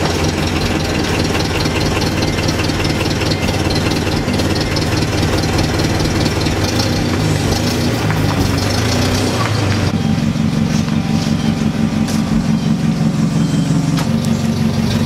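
Hyster forklift engine running as the forklift lifts the aluminum tailgate. About ten seconds in the engine note changes abruptly to a steadier, even running.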